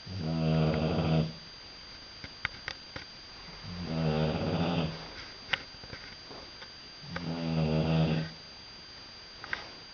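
British bulldog snoring loudly in its sleep: three long snores, each about a second and a half, coming every three to four seconds, with small clicks in the pauses between them. Heavy snoring like this is common in the breed's short, flat-faced airway.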